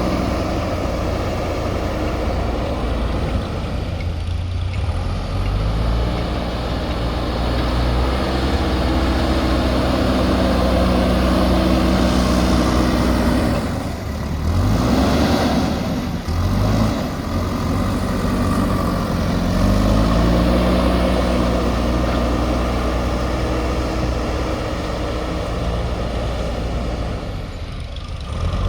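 JCB backhoe loader's diesel engine running under working load, its pitch rising and falling in steps as the revs change. About halfway through there is a hissing rush of a couple of seconds.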